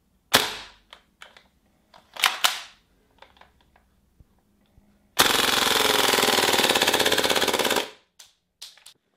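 Marusan Type U gas blowback micro-Uzi replica: a few sharp mechanical clacks, then a full-auto burst of about two and a half seconds at a high rate of fire, then a few small clicks near the end.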